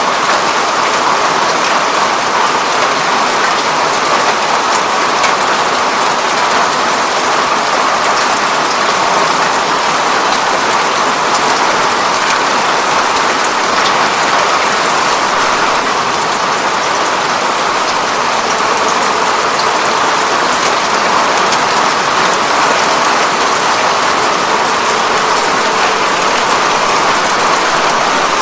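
Steady rain falling on a window pane, with a dense patter of drops.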